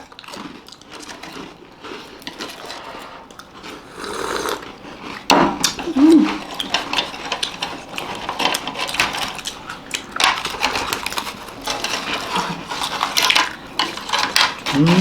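Chopsticks clicking and clattering against biscuits, packets and glasses in quick, irregular taps, growing busier and louder about five seconds in.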